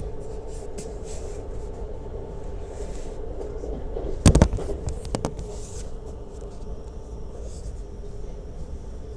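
Lastochka (Siemens Desiro RUS) electric train rolling along with a steady rumble and hum, and the wheels clacking over a rail joint in a quick cluster a little under halfway through, a few lighter clacks following.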